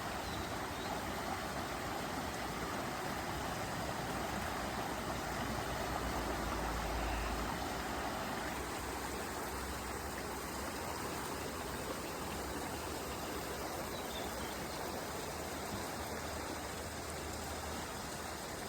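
Mountain stream flowing: a steady, even wash of water noise.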